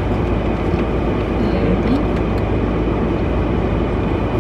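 Steady low rumble of a car's engine running, heard from inside the cabin, with a brief murmured voice about a second and a half in.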